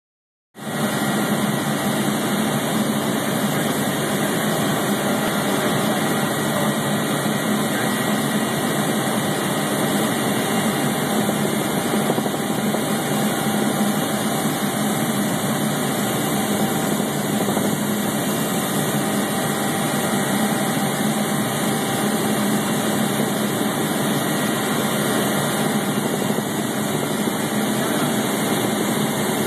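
Steady engine noise of a small aircraft in flight, heard from inside the cabin; it starts abruptly about half a second in and then holds an even level.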